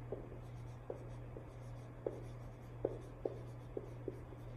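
Dry-erase marker writing on a whiteboard: a string of short, irregular squeaks and taps as the letters are drawn.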